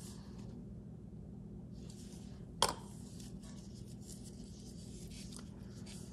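Faint rustling of gloved hands handling a small plastic scale model, with one sharp click about two and a half seconds in, over a low steady hum.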